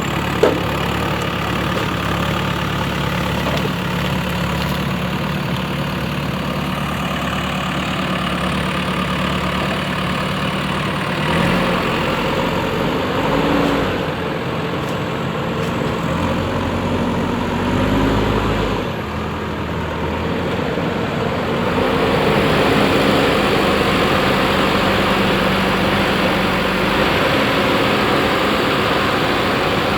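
Diesel engine of a JCB 3DX backhoe loader running steadily, its pitch rising and falling several times as it works. A single sharp click comes just after the start.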